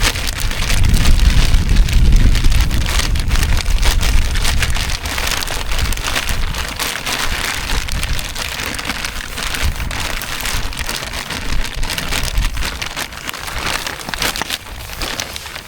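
Raw chicken wings being mixed with seasoning, a dense rustling, crackling patter with heavy handling rumble in the first few seconds that eases toward the end.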